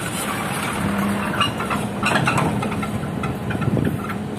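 Diesel engine of heavy construction machinery running steadily, with a few knocks around the middle.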